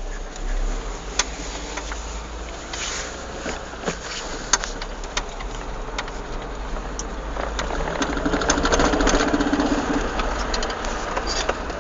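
Peugeot 306 cabriolet with the 1.6i petrol engine accelerating, the engine getting louder about eight seconds in, with sharp single clacks scattered through and quicker clusters of clacks later on: the clacking the car makes under acceleration in a straight line, its cause not known.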